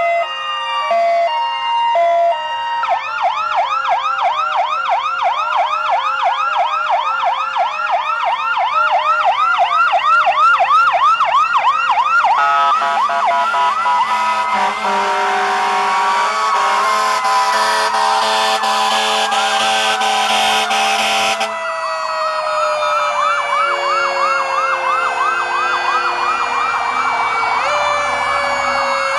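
Several fire apparatus sirens sounding together: electronic sirens yelping in rapid sweeps, steady horn tones, and a mechanical siren winding down in one long falling wail through the second half.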